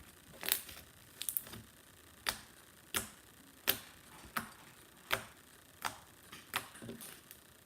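Icy slime being squeezed and pressed in the hands, making sharp clicks at an even pace, about one and a half a second.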